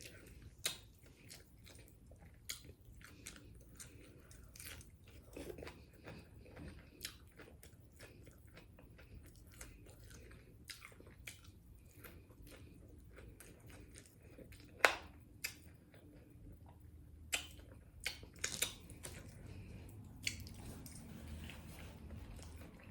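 A person eating tacos close to the microphone: chewing and biting, with many short sharp clicks. The sharpest comes about fifteen seconds in, and a cluster follows a few seconds later.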